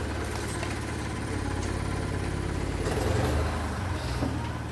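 Small truck's engine idling steadily, a low hum that grows a little louder about three seconds in.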